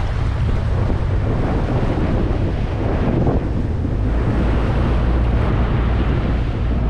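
Subaru Outback fording a shallow river: water rushing and splashing around the wheels and body over the low, steady rumble of the engine, with wind buffeting the microphone.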